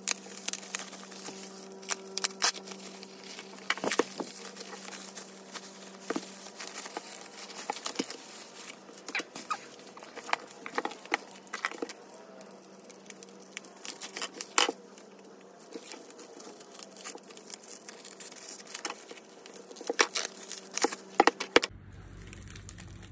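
Bubble wrap crinkling and rustling as it is cut open with a utility knife and scissors and pulled off the albums, with many sharp, irregular crackles. A faint steady hum sits underneath and stops near the end.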